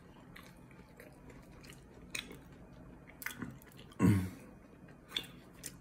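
A person chewing a mouthful of churro cheesecake taco close to the microphone: soft, wet mouth sounds with a few small crunchy clicks, and a short hum from the eater about four seconds in.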